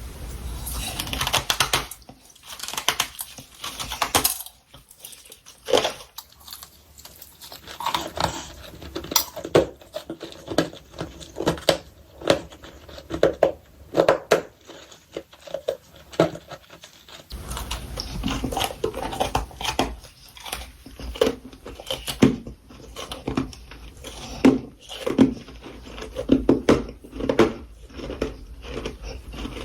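Close-up crunching of powdery freezer frost being bitten and chewed, a quick, irregular run of crisp crunches several times a second, with a short lull a few seconds in.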